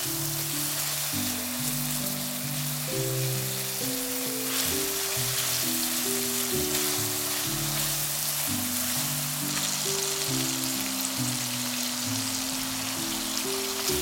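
Food frying in a pan, a steady sizzle, under background music of slow, held low notes.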